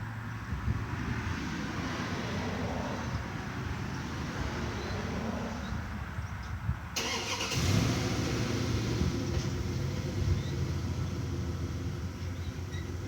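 A motor vehicle's engine running steadily, a low hum, with a sudden change in tone about seven seconds in.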